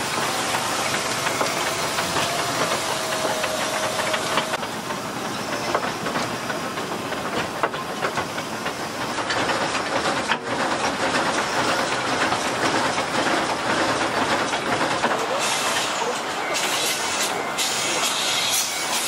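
The 1928-built Amemiya No. 21 forest-railway steam locomotive running with its train, steam hissing over the steady running noise of the train on the rails.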